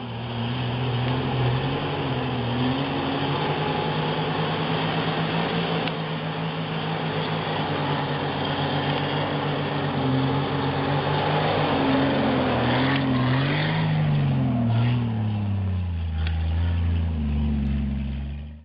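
Jeep Wrangler YJ's engine working under load on a muddy off-road climb, its pitch wavering with the throttle. In the last few seconds it is revved up and down several times, then drops to a low, steady run.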